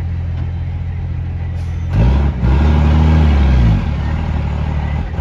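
Unimog truck's engine pulling up a steep dirt climb: steady at first, then revving up about two seconds in, held high for over a second and dropping back, then revving up again at the very end.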